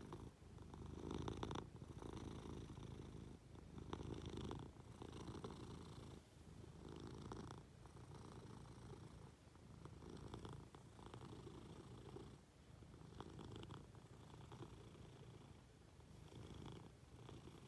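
Munchkin cat purring close to the microphone, a steady low rumble that swells and eases with each breath about every second and a half.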